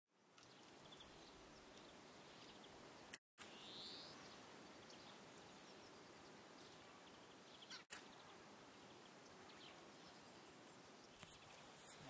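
Quiet, steady outdoor hiss with a few faint small-bird chirps, one of them rising; the sound cuts out briefly twice.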